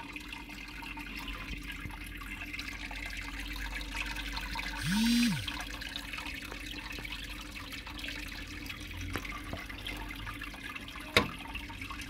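Water from a double-cascade aquarium filter splashing steadily into the tank and stirring up air bubbles, over a faint low hum, at a flow strong enough to oxygenate and keep the water clear. A short low tone sounds about five seconds in and a sharp click near the end.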